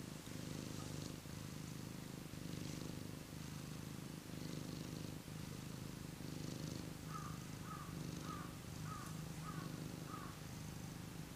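Ginger tabby cat purring steadily, the purr running in stretches with short breaks about every second or so.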